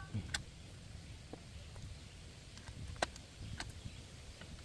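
A few sharp clinks and knocks from tools and brake parts being handled while a brake caliper is taken off, the loudest about three seconds in, over a low steady rumble.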